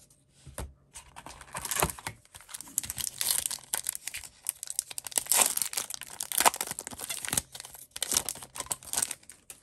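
A 2019-20 Upper Deck Series 1 Hockey card pack being torn open, its wrapper tearing and crinkling in a run of irregular rustling bursts.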